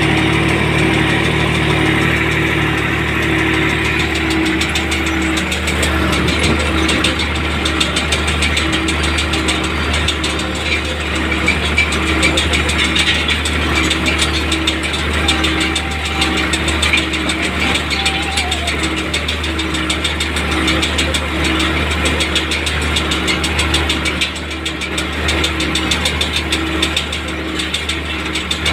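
Tractor diesel engine running steadily under load, heard from inside the cab, while towing a Tümosan S690 square baler that is baling hay.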